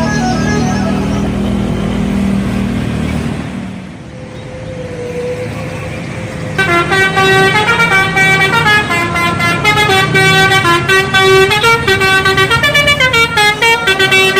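Indonesian bus telolet horn, a multi-trumpet musical horn, playing stepping tunes. One tune fades out over engine noise in the first couple of seconds; after a lull, a loud telolet melody of quick pulsing notes starts about six and a half seconds in.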